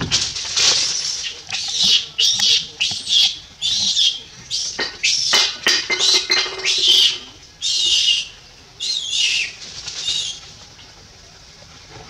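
Macaques squealing: a rapid run of about a dozen short, high-pitched squeals that stops about ten seconds in.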